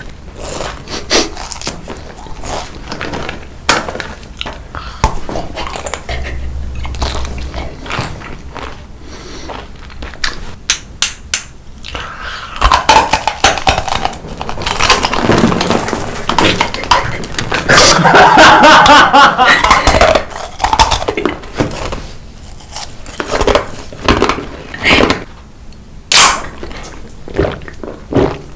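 Close-miked eating sounds: food being bitten and crunched again and again in short, sharp crackles, loudest in a dense stretch through the middle.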